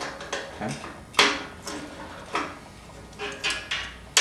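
Light metallic clinks and taps as a steel square and small hand tools are handled against steel angle iron on a workbench: about five separate knocks, the sharpest about a second in.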